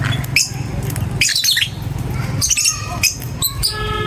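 Lovebirds chirping and squawking in a run of short, sharp, high calls, with one longer held call near the end. A low steady hum sits underneath for about the first second.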